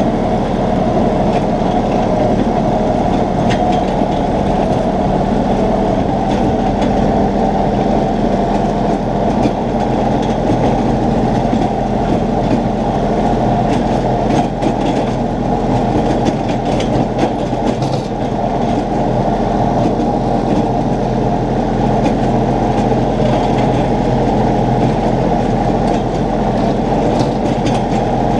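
Compact tractor engine running steadily at working speed while mowing, with the mower running, heard from the driver's seat as an even, unbroken hum.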